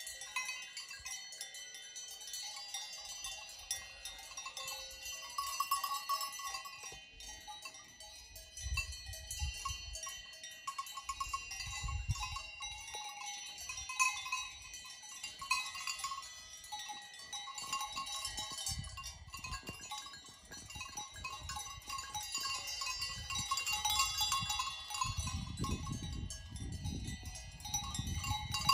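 Many bells worn by grazing Alpine goats and cows, clanking and ringing irregularly and overlapping as the animals move and feed, with a few low rumbles now and then.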